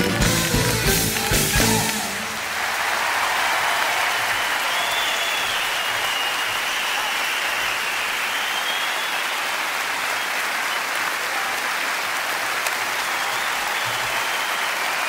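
Stage dance music with fast percussive steps stops abruptly about two seconds in. A theatre audience then applauds and cheers steadily, with a few whistles.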